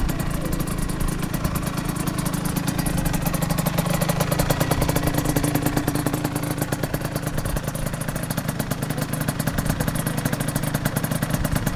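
Aprilia RS125's 125 cc two-stroke single-cylinder engine, breathing through a single-side exhaust, running steadily at low speed with rapid, even exhaust pulses.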